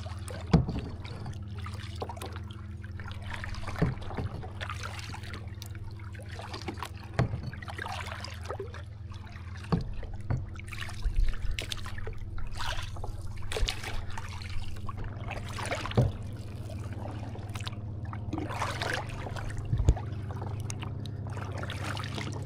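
Kayak paddling: irregular splashes and knocks of the paddle in the water, over a steady low hum that grows a little louder about two-thirds of the way through.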